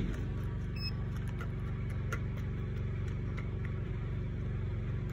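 Steady low hum of an idling engine, with a few faint clicks over it.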